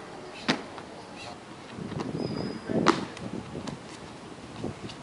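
A few sharp slaps and thuds, one about half a second in and the loudest near three seconds in, with scuffing between them: parkour runners' feet landing and pushing off on stone pavement.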